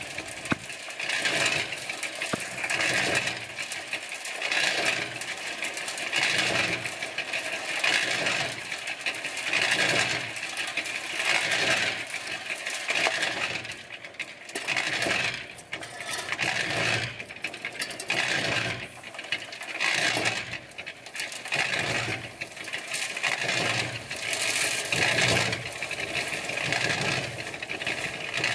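Small electric cement mixer turning a batch of concrete, with gravel and mix rattling and tumbling in the steel drum. The sound swells and fades in a regular cycle about every two seconds as the drum turns.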